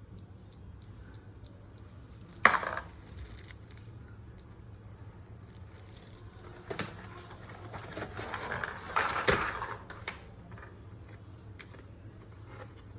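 Handling noises on a desk: faint scattered ticks, one sharp knock about two and a half seconds in, a click a few seconds later, then a longer scraping rustle that builds and dies away near ten seconds.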